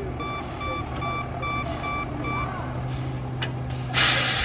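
An Autocar ACX rear-loader garbage truck's backup alarm beeps about two and a half times a second over its running diesel engine, and the beeps stop a little past halfway. Near the end comes a loud, sudden hiss of air from the truck's air brakes as it halts.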